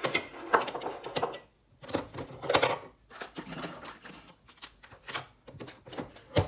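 Kitchen clatter while coffee is being made: an irregular run of clicks, knocks and clinks of cups and utensils being handled, with a sharp knock near the end.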